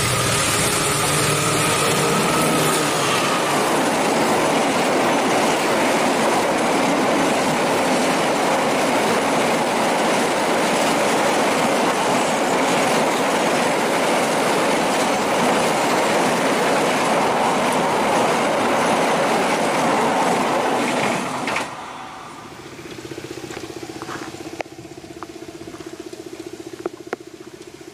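Diesel-electric locomotive and a long train of empty flat wagons passing close at speed: a loud, steady rush of wheel and rail noise. It drops away sharply about 21 seconds in, leaving a faint steady hum with a few ticks.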